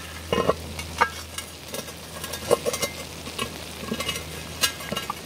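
Food in a cast-iron Dutch oven sizzling and crackling with scattered small pops, the pot still hot from the coals.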